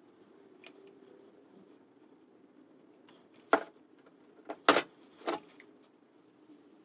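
Four sharp metallic clicks and clacks bunched in the middle, the third the loudest, from handling tools and parts while construction adhesive is laid on a steel linear drain.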